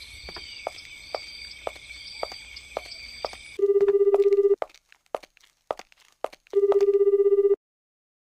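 Mobile phone ringing with an old-style telephone ringtone: a loud, trembling ring about a second long, heard twice about three seconds apart. Before the ringing, soft regular footsteps over a steady high-pitched background.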